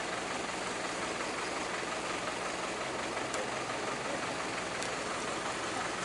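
Heavy vehicle's diesel engine running steadily with a low even hum.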